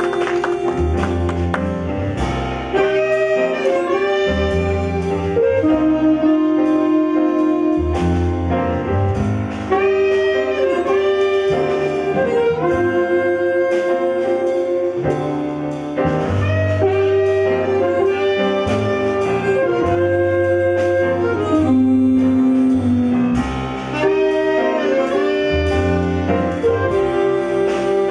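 Small jazz ensemble playing live: saxophones carry the melody over piano, upright double bass and electric guitar, with a harmonica joining in.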